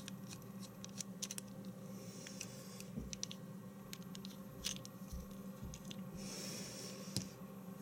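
Small screwdriver turning screws on a metal spinning reel as it is taken apart: faint scattered clicks and light metal-on-metal scraping, with a brief rasping rustle about six seconds in.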